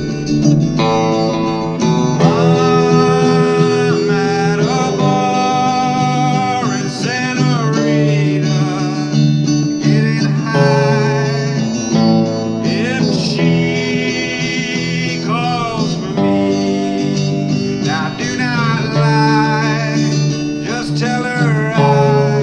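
Live acoustic guitar music: steady chords under a held melody line that bends and slides in pitch.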